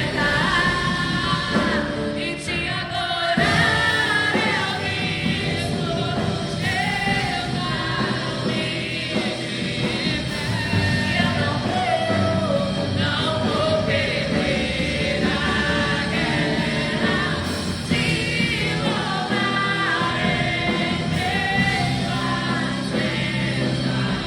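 Worship band and singers performing a gospel song, with voices carrying the melody over steady band accompaniment.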